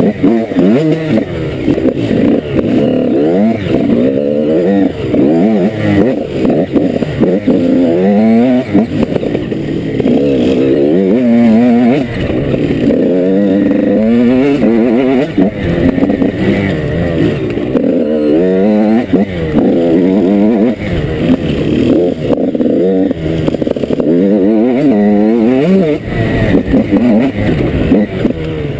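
Enduro dirt bike engine heard close up from the bike itself, revving up and easing off over and over, its pitch rising on each pull through the gears and dropping back as the rider works the throttle over rough trail.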